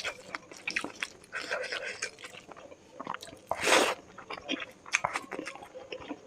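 Close-miked eating of chicken curry with rice: wet chewing and biting with many small crunches and clicks, and one louder, longer crunch a little past halfway.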